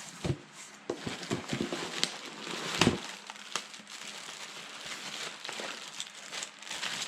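Cardboard shipping box being opened and its packing rustled and crinkled, with scattered small clicks and a louder knock just under three seconds in.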